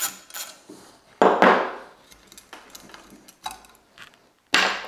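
Small steel hardware clinking and clattering against the aluminium table leg as the loosened tool and spacer are taken off, with louder clatters about a second in and near the end.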